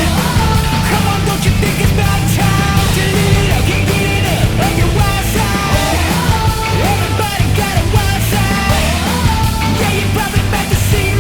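Background music: loud punk-style rock with shouted singing over a driving band.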